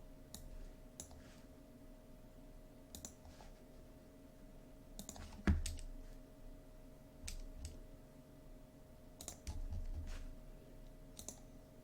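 Scattered clicks of a computer keyboard and mouse, a few seconds apart with a short cluster near the end, over a faint steady hum.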